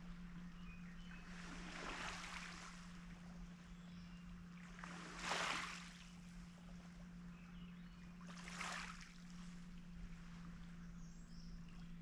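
Small waves washing up onto a pebble beach at the edge of calm water: a soft swell of hiss about every three to four seconds, the loudest about five seconds in.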